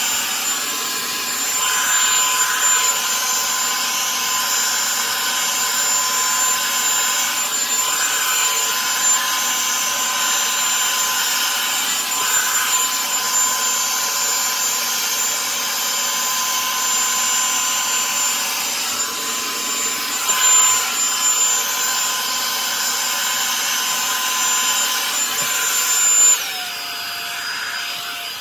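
Revlon One-Step Volumizer hair dryer brush running with a steady motor whir and high whine. Near the end the whine drops in pitch and the sound gets quieter as the dryer is switched from high down to low.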